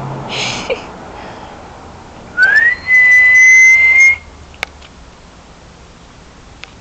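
A person whistling to call a dog: a short rising whistle, then one long steady note held for about a second.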